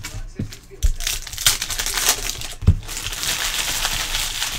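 Foil wrappers of Panini Prizm basketball card packs crinkling and tearing as packs are opened by hand, with a few short thumps of packs and cards set down on the table.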